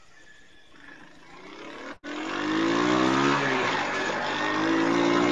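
An engine revving, coming in suddenly about two seconds in and running loud, its pitch dipping and then climbing again.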